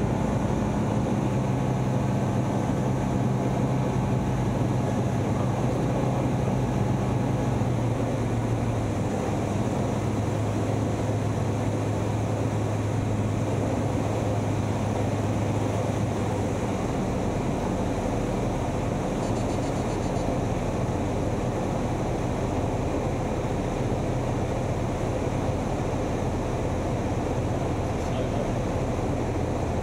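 Light aircraft's piston engine and propeller droning steadily in the cabin on a descending approach. The engine note drops lower about eight seconds in and eases again around sixteen seconds, as power is brought back.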